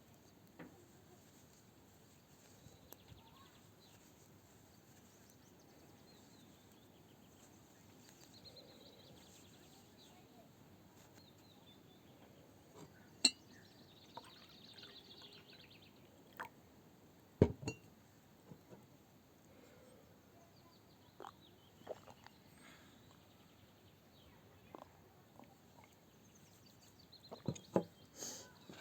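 Knitting needles clicking now and then: scattered sharp clicks over a quiet background, the loudest about halfway through and a quick cluster near the end.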